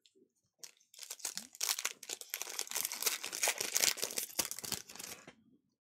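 Foil wrapper of a Panini Donruss basketball card pack being torn open and crumpled by hand: a dense crinkling crackle that starts under a second in and stops shortly before the end.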